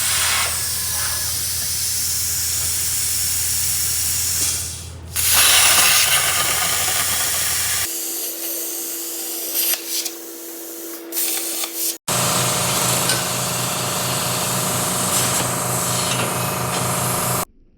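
Power tools running in three edited clips: a steady motor hum under a loud hissing, grinding noise, cut to a quieter steady tone about 8 seconds in, then back to hum and hiss about 12 seconds in, stopping abruptly near the end.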